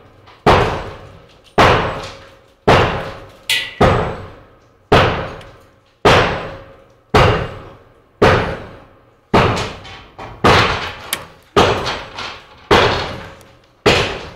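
Loud bangs repeating at a steady pace of about one a second, each a sharp hit that rings out and dies away before the next.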